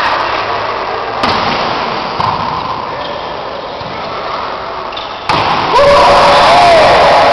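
Spectators and players shouting in an echoing sports hall, the noise growing much louder about five and a half seconds in, with a single voice rising and falling above it.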